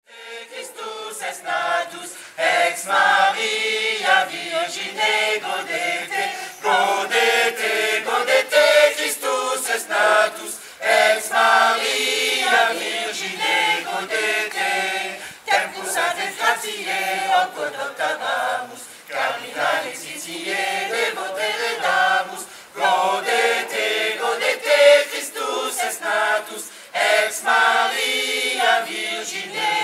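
Choir singing a Latin Christmas carol, with sung phrases going on throughout.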